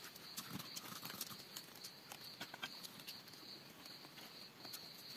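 Faint forest ambience: an insect chirping in a steady, evenly pulsing high-pitched rhythm, with scattered light clicks and taps.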